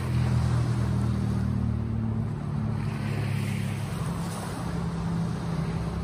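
Sea waves washing over a steady, low engine drone that is strongest in the first half. A wave swells and breaks about three seconds in.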